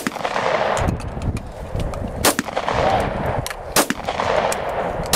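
Gunshots fired one at a time, about a second and a half apart, each sharp crack followed by a long rolling echo. Fainter cracks come in between the main shots.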